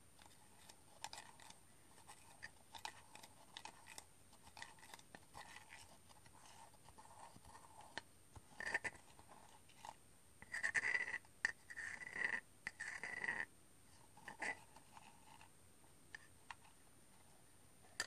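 Spoon stirring a drink in an earthenware mug, scraping and clicking against the inside. Light clicks and scrapes run throughout, with louder scraping passes in the middle.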